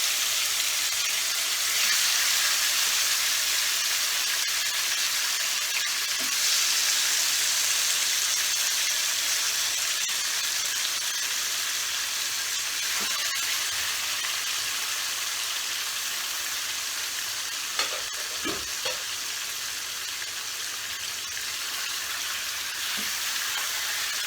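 Marinated bone-in chicken pieces sizzling in hot oil in a pan: a steady loud hiss that swells about two seconds in and again about six seconds in. A few short knocks come later.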